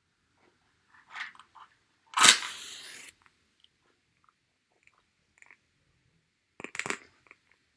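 A match being struck to light a candle: some small scrapes, then a sharp strike about two seconds in that flares into a hiss lasting about a second. A few small clicks and knocks follow near the end.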